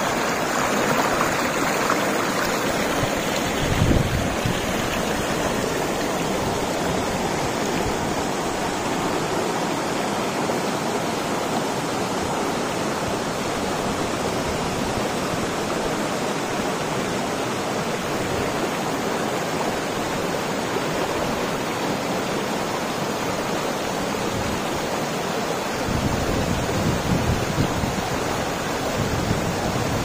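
Shallow rocky stream rushing and splashing over stones in a steady rush of water, with low wind rumbles on the microphone about four seconds in and again near the end.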